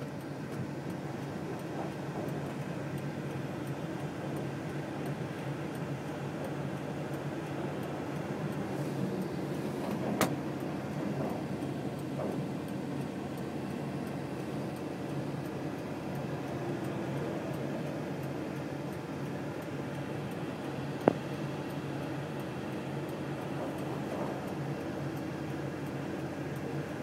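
Steady road and engine noise of a car, heard from inside the cabin, with a sharp click about ten seconds in and another about twenty-one seconds in.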